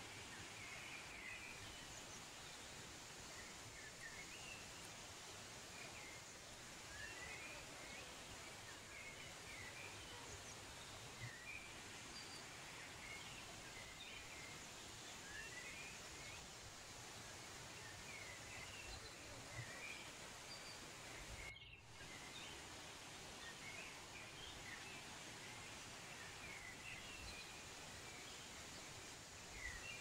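Faint nature ambience: a steady, even rushing hiss with many small, high bird chirps scattered throughout. The sound cuts out briefly a little over two-thirds of the way in.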